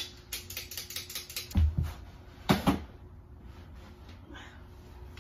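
A fast run of sharp clicks, with two louder dull thumps about one and a half and two and a half seconds in; the clicking stops about three seconds in.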